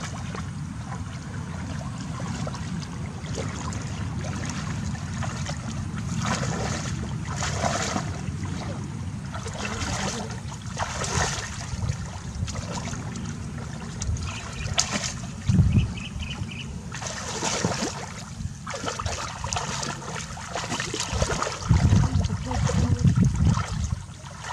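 Water splashing and trickling as someone moves through shallow water, catching fish by hand, over a steady low rumble. There is a loud splash about fifteen seconds in and a run of heavier splashes near the end.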